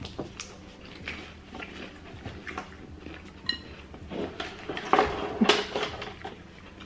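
Close-miked chewing of a fried shrimp egg roll: irregular crunches and mouth clicks, loudest about five seconds in.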